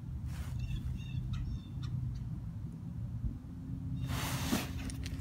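Wind rumbling on the microphone, with a few short, faint bird chirps in the first two seconds and a brief scratchy hiss about four seconds in.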